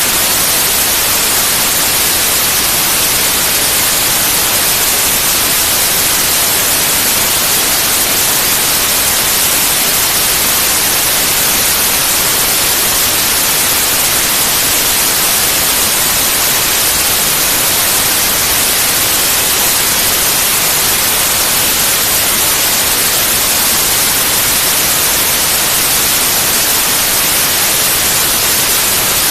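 Steady white noise: an even, unbroken hiss with the most energy in the high frequencies.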